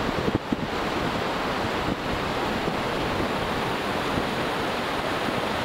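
Wind rushing and buffeting over the microphone, a steady unbroken noise with an uneven low rumble.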